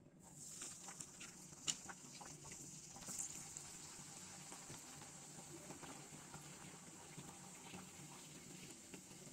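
Bhatura dough deep-frying in hot oil: a sizzling hiss that starts as the dough goes in, with crackles and pops over the first few seconds, then a steady frying hiss.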